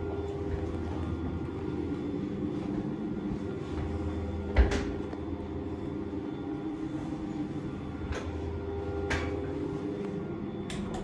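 Lift car running during an upward ride: a steady machinery hum with a low drone. A single thump comes a little before halfway, and a few sharp clicks follow in the second half.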